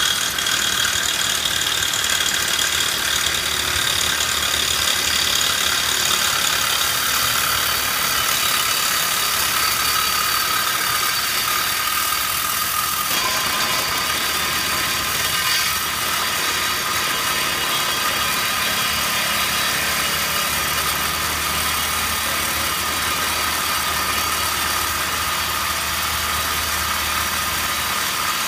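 Cordless reciprocating saw cutting through a steel tube bike rail: a steady high whine and rasp of the blade sawing metal without pause.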